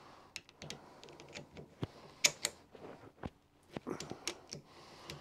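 Irregular light metal clicks and taps from hand work on a bronze steam valve: a socket on the flange nuts and the valve spindle being handled in its gland. The sharpest tap comes a little past two seconds in.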